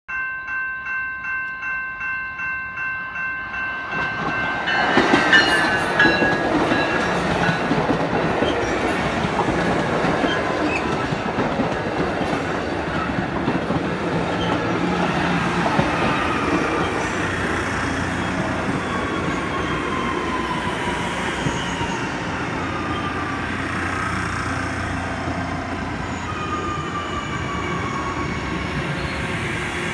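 Level-crossing warning bell ringing about twice a second. From about four seconds in, an electric commuter train passes close by with a loud rush of wheels on rail, and thin high-pitched wheel squeals slide down in pitch.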